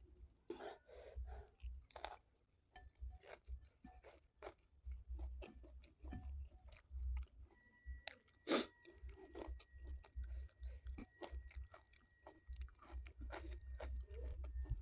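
Quiet close-up chewing of a mouthful of tiwul with stir-fried cabbage and green beans, with crunching and many small mouth clicks. One louder crunch comes just past halfway.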